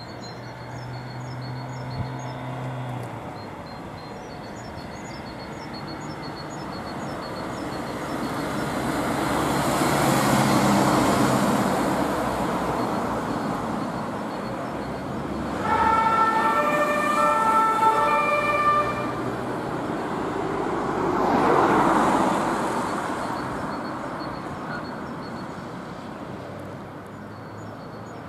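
A German rescue ambulance sounds its two-tone siren (Martinshorn) for about three seconds in the middle, switching back and forth between two pitches. Passing traffic rises and falls around it, loudest a few seconds before and after the siren. Birds chirp faintly at the start and end.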